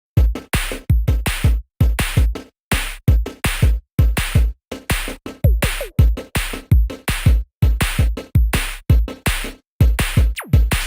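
Electronic background music with a heavy drum-machine beat: deep bass kicks and sharp full-range hits in a fast, chopped rhythm, broken by brief silent gaps.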